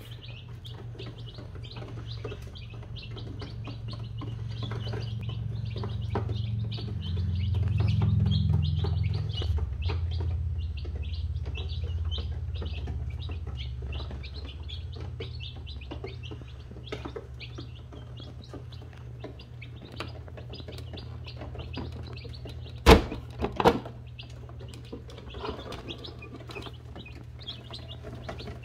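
Many day-old chicks (Buff Orpington, Cream Legbar and Black Copper Marans) peeping continuously in quick, high chirps over a low hum. Two sharp knocks close together come about two-thirds of the way through.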